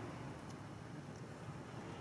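Steady low outdoor background rumble with a few faint, scattered clicks.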